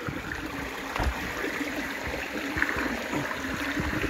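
Shallow creek water running and trickling over stones, with a few dull knocks.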